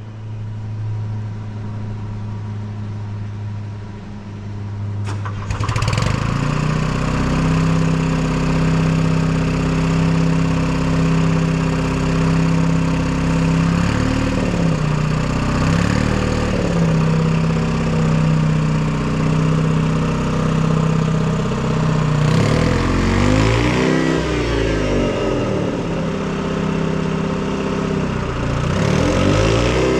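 Detroit Diesel 2-53 two-stroke diesel engine turning over with a steady low hum, catching about five seconds in, then running. It is revved up and back down a few times, most strongly near the end.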